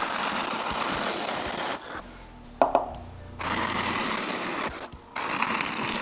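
Nova Voyager drill press boring into a hardwood block with a Forstner bit: cutting noise in three spells, broken by short pauses about two and five seconds in, with a sharp click shortly before the middle.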